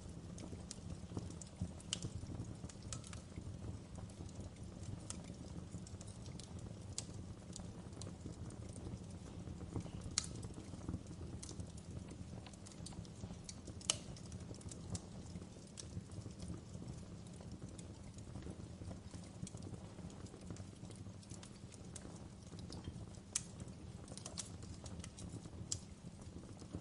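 Wood fire crackling in a fireplace: a steady low rumble of the burning fire with irregular sharp pops and snaps, a few of them louder than the rest.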